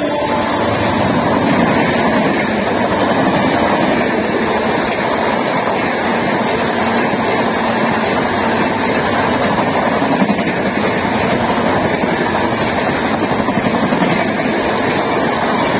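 Passenger coaches of an express train rushing past at about 110 km/h: a steady, loud rush of wheels on rail and wind noise.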